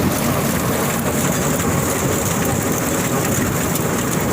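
Tractor-driven straw chopper running steadily in the field, a loud, dense mechanical noise with a high hiss that grows brighter about a second in.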